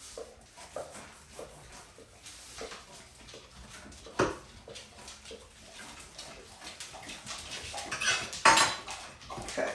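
Dishes and utensils clinking in a kitchen sink as things are handled, with small scattered clicks and one sharp knock about four seconds in. A louder rustle comes near the end.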